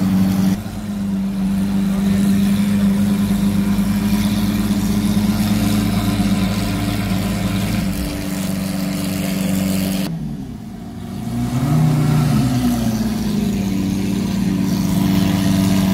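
Lamborghini V12 supercar engine idling steadily. About ten seconds in the sound briefly drops away, then comes a short rise and fall in engine pitch before the steady idle returns.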